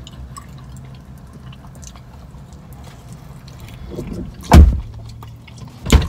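Eating sounds: faint wet chewing and smacking over the car cabin's quiet background, then two loud, sharp thumps about a second and a half apart near the end.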